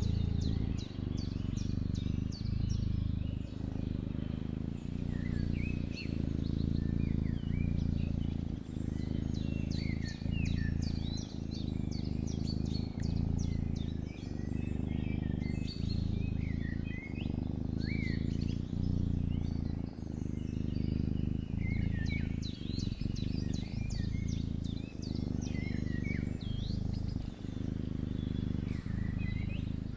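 Small birds chirping and trilling over a low, steady rumble that breaks off briefly about every second and a half.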